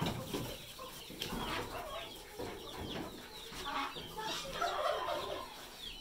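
Chickens calling: clucking mixed with many short, overlapping chirps that fall in pitch.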